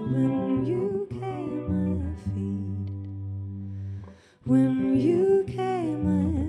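Live song: a singing voice over guitar and steady low held notes, the music dropping out briefly about four seconds in before the voice comes back in.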